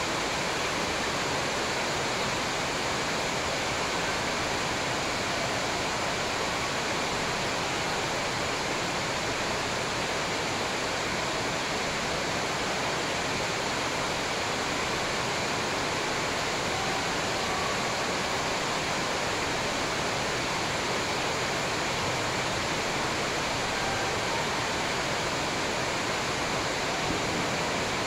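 Steady, even rushing hiss at a constant level, with no shuttle hits or voices standing out above it.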